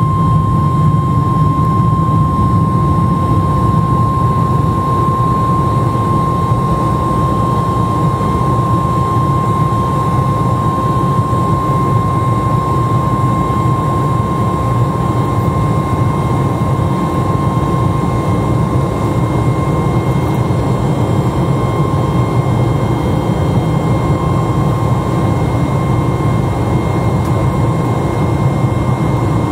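Boeing 737 MAX 8's CFM LEAP-1B turbofan engines running steadily in the climb after takeoff, heard inside the cabin: a steady engine rumble with one high, steady whining tone above it.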